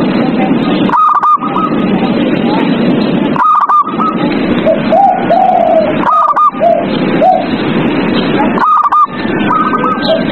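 Zebra doves (perkutut) cooing: a short burst of quick, stuttering notes repeats about every two and a half seconds. Lower coos from other doves fall in between, over a dense, steady background noise.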